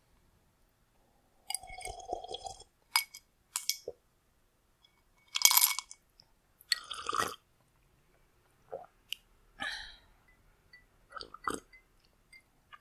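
A person drinking cold water close to the microphone: a string of separate gulps, swallows and wet mouth clicks with short quiet gaps, the loudest two about five and a half and seven seconds in.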